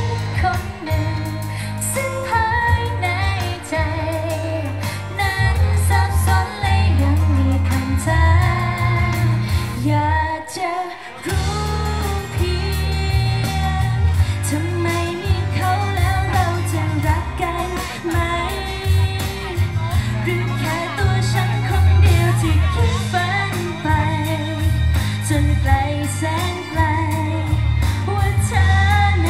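A female pop vocal group singing live into microphones over a pop backing track with a heavy bass beat. The bass and backing drop out briefly about ten seconds in, then the beat returns.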